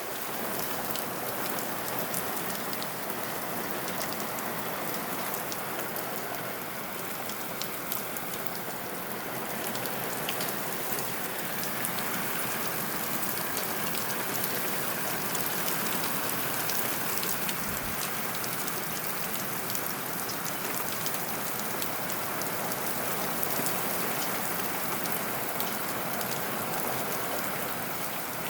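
Steady rain falling, an even hiss with many individual drops ticking sharply close by.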